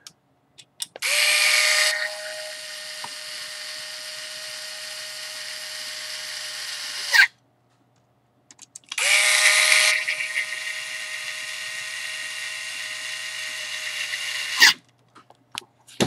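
Power screwdriver driving the shouldered screws into a seatbelt tensioner's cap plate, in two runs of about six seconds each. Each run is loudest in its first second, then runs steadily and ends with a sharp burst as the tool stops.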